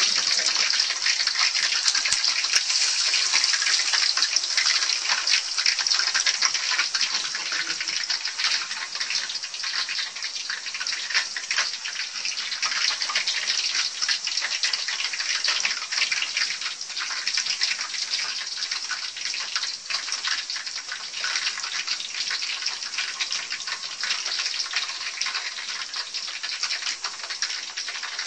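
Banana slices deep-frying in hot oil in a wok for banana chips: a steady, dense sizzle and crackle.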